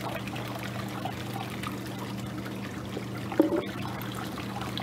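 Hot tub water trickling and lapping, over a steady low hum. A brief louder sound about three and a half seconds in.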